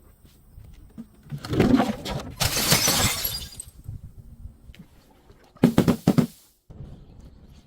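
Glass bottle being broken: a crunching break about a second and a half in, running into a longer high-pitched spray of shattering glass, then another brief burst of crunching a few seconds later.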